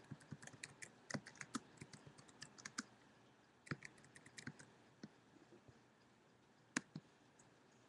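Faint typing on a computer keyboard: quick, irregular key clicks in two short runs, then a single click near the end.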